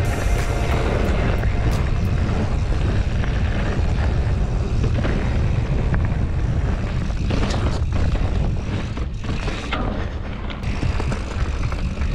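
Wind buffeting the camera microphone and knobby mountain-bike tyres rolling over a dirt singletrack, a steady loud rumble with scattered clicks and rattles from the bike over bumps. The rumble eases briefly about two thirds of the way through.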